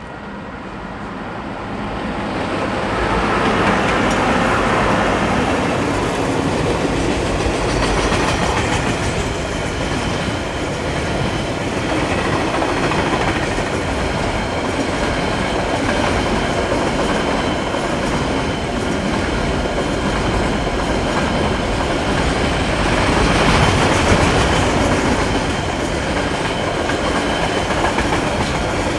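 Freight train passing close by, its wheels running over the rails; the noise builds over the first few seconds, then stays loud and steady with swells.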